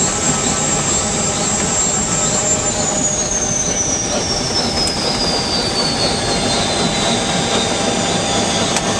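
UH-1 Huey helicopter's turbine engine running with a high whine that holds steady, then falls steadily in pitch from about two and a half seconds in as the throttle is rolled down, over the constant rush of engine and rotor.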